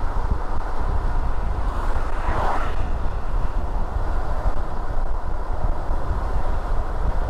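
Car driving on city streets: steady low road and tyre rumble with some wind noise, and a brief swell of hiss about two and a half seconds in.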